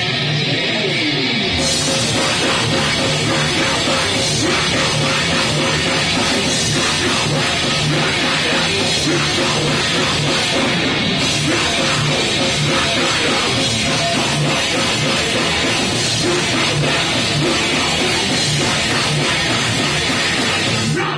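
Live heavy metal band playing loud: distorted electric guitar, bass and drum kit. The full band comes in about a second and a half in.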